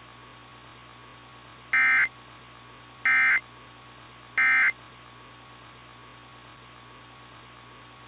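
Three short bursts of the Emergency Alert System's digital SAME data signal, about 1.3 seconds apart: the end-of-message code that closes an emergency alert broadcast. They play over a steady radio hum and hiss.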